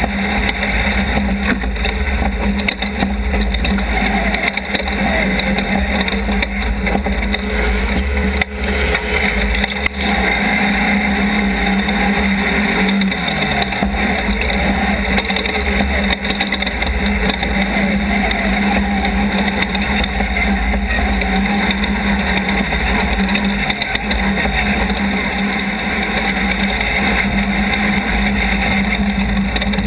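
Off-road race car engine running at speed, a loud steady drone over a heavy low rumble, with a couple of brief dips in pitch.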